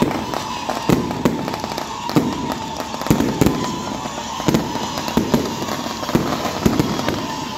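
Aerial fireworks going off: shells launching and bursting overhead in irregular sharp bangs, about two a second, over a crackling rumble, with a steady high tone running underneath.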